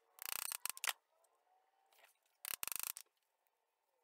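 Two short bursts of rasping handling noise on small metal vise parts: one in the first second, made of a few quick strokes, and another about two and a half seconds in.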